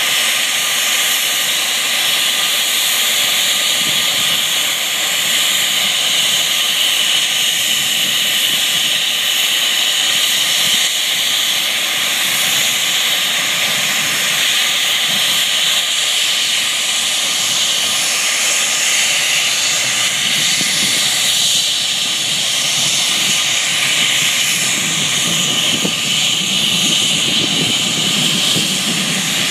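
Cessna Citation Mustang's twin turbofan jet engines at taxi power: a loud, steady high whine and hiss. A deeper rumble grows in over the last few seconds.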